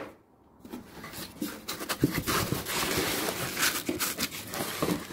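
Foam packing and cardboard box rustling and scraping, with many small crackles, as a heavy inverter is pulled out of its packaging; it starts about half a second in.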